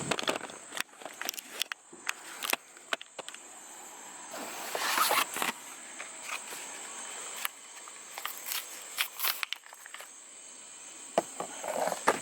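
Scattered clicks, knocks and footsteps of a person moving about and handling things, with a louder rustling scrape about five seconds in and again near nine seconds. A faint steady high whine runs underneath.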